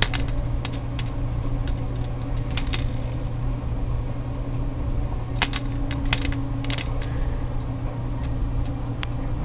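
Scattered light clicks and taps, some in quick pairs, over a steady low hum.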